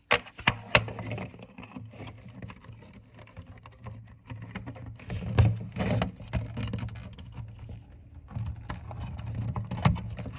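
Handling noise: scattered clicks, taps and rustles of hands moving small objects, over a low steady hum.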